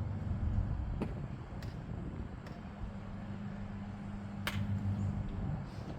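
A few sharp clicks and knocks of the shark decoration's parts being fitted together on their guide pins, the sharpest about four and a half seconds in, over a low steady rumble and hum.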